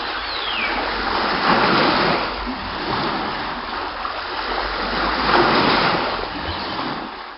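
Sea water rushing and splashing, with a steady low rumble underneath. It swells louder about a second and a half in and again about five seconds in.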